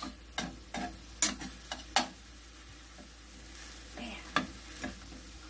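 Metal utensil scraping and clicking against a stainless steel skillet as ground chicken is broken up and stirred, over a faint steady sizzle of the meat frying. The clicks come quickly in the first two seconds, then a few more around four seconds in.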